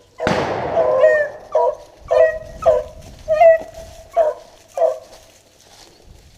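Beagles baying in short, repeated yelps while running a rabbit, about six calls that fade out near the end. A single sudden loud crack comes just after the start.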